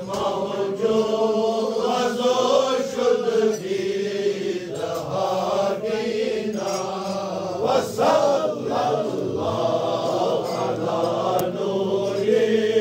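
A group of men chanting Sufi devotional verses together in a steady, continuous recitation.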